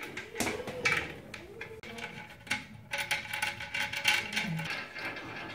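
Plastic wing nut being turned by hand on a toilet cistern's fixing bolt, against the ceramic: a run of small irregular clicks and scrapes.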